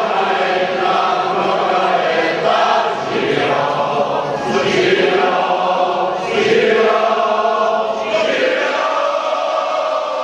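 A large crowd of men and women singing a song together, many voices blending into held, drawn-out notes.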